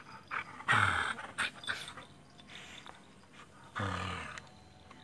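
Dogs play-growling as they wrestle: two short, rough growls about three seconds apart, each dropping in pitch.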